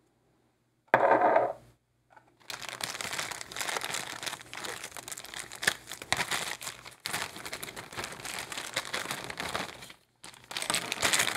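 Thin plastic packaging crinkling and rustling as hands open it and pull a paintbrush out, with an irregular crackle that starts about two and a half seconds in and carries on for most of the rest.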